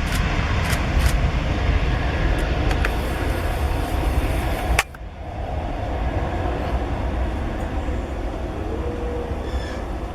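Boeing 767-300 on its takeoff roll heard from on board: a heavy, steady rumble of engines at takeoff power and wheels on the runway, with a few clicks. The noise drops abruptly about five seconds in, then builds back up.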